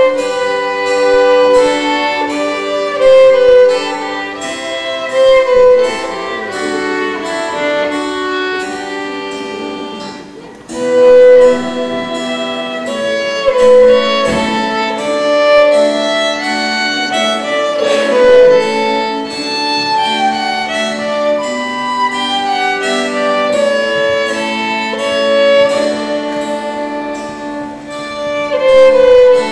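Trio of violins playing a melodic piece live, with held bowed notes. The playing thins out briefly about ten seconds in, then comes back at full strength.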